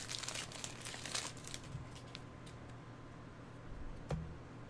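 Foil wrapper of a trading-card pack crinkling as it is handled and opened, busiest in the first second and a half, then quieter handling of cards, with a single soft knock about four seconds in.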